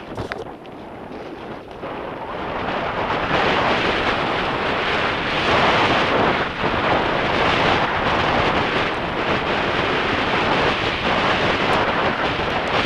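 Wind buffeting an action camera's microphone, with tyre and trail noise, as a mountain bike rolls down a dirt singletrack. The rushing noise builds over the first few seconds as the bike picks up speed, then holds steady.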